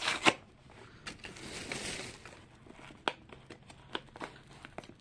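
A small blind-box toy package being opened by hand: two sharp clicks at the start, a rustling, tearing sound about a second in that lasts about a second, then scattered light clicks and crinkles.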